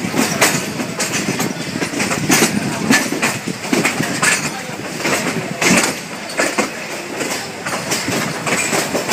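Myanmar Railways passenger coach running along the track, heard at an open window: a steady rumble with irregular clattering knocks from the wheels over the rails.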